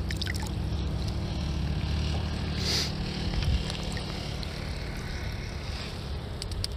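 Steady low rumble of wind on the microphone by a flowing river, with a short hiss about three seconds in.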